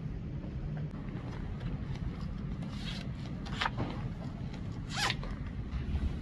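Zipper of a zip-up hoodie being pulled, two quick zips about three and a half and five seconds in.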